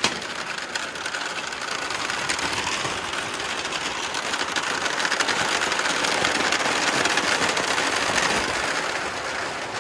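A mass of balls rolling and clattering down a wooden marble-run track in a continuous dense rattle. It builds to its loudest past the middle and thins out near the end.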